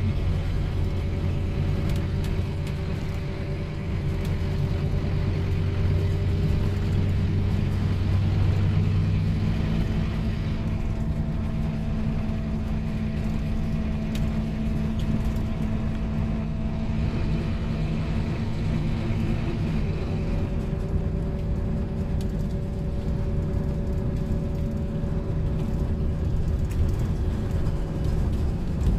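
Scania OmniLink single-deck bus heard from inside the cabin while driving, its engine running steadily under road rumble. The engine note shifts up in pitch about ten seconds in and drops back about twenty seconds in.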